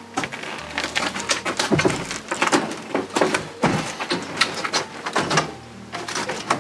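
Washing machine on a hand truck rattling and knocking as it is wheeled and tilted over rough ground: irregular clatter, with two heavier thumps about two and four seconds in.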